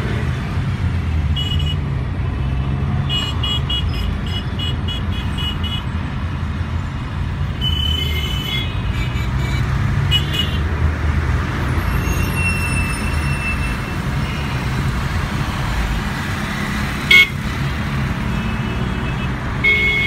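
Congested road traffic heard from inside a car's cabin: a steady low rumble of engine and tyres, with other vehicles' horns honking off and on, including a quick run of short beeps a few seconds in. A single brief sharp knock comes near the end and is the loudest sound.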